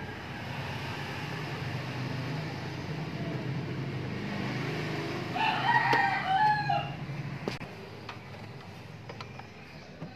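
A rooster crows once, a call of about a second and a half just past the middle, the loudest sound here. Beneath it runs a steady low mechanical hum that fades out shortly after the crow, and a few light clicks follow.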